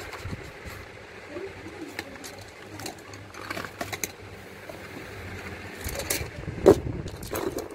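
Pencils being handled and unpacked from a cardboard box: rustling packaging and light clicks as the pencils knock together, with one louder knock near the end.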